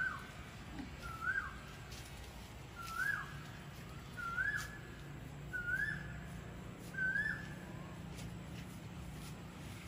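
A bird calling repeatedly: a short whistled note that rises and then drops, six times about a second and a half apart, stopping about seven seconds in.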